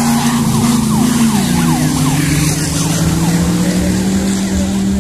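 Off-road race buggy's engine running hard as it drives through mud and water. Its pitch drops about a second and a half in and then holds steady, over a hiss of mud and water spray.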